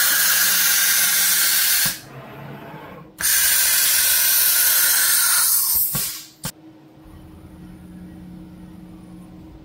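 CNC spindle tool change, with compressed air hissing in two blasts of two to three seconds each as the tool is released and picked up. Each blast ends with a sharp click, and a low steady machine hum follows.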